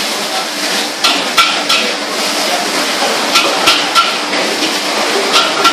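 Metal spatula striking and scraping a wok while char koay teow is stir-fried: several sharp clangs at uneven intervals over a steady frying hiss.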